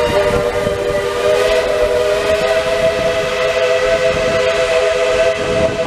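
Steam locomotive's chime whistle blowing one long, steady blast, several tones sounding together as a chord, over the running noise of the moving train.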